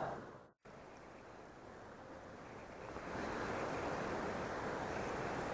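Steady outdoor noise of wind on the microphone and river water, with no distinct events. It drops out completely about half a second in, returns quietly, and grows louder about three seconds in.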